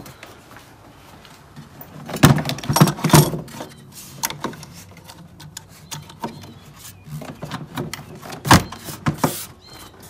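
Plastic engine cover and airbox of a Volkswagen Eos being handled and pressed back into place over the engine: a cluster of sharp plastic knocks and clunks about two seconds in, scattered clicks after, and another sharp knock near the end.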